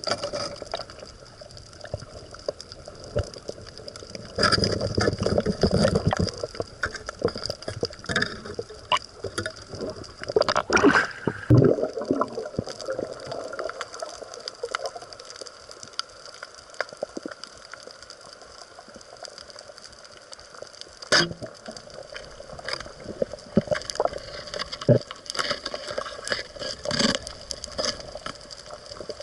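Water gurgling and sloshing around the camera, with two louder rushes of water and many scattered sharp clicks and crackles.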